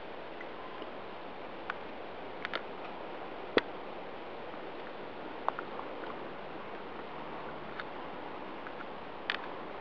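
Steady background hiss broken by a handful of sharp clicks, the loudest about three and a half seconds in and a small cluster near the end.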